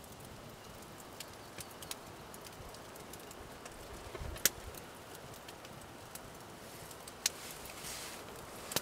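Steady rain pattering on a tarp and an overturned canoe, with scattered sharp pops from a campfire, the loudest about halfway through and another near the end.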